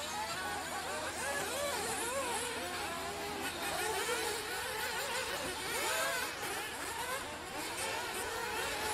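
Several nitro RC race car engines running at once, their high-pitched whine constantly rising and falling as the cars rev and brake around the track.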